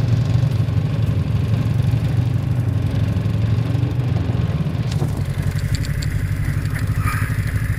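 Arctic Cat snowmobile engine idling steadily, with a few light clicks over it in the second half.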